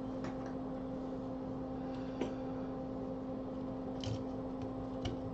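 Steady low electrical hum, with four faint light clicks spread through it.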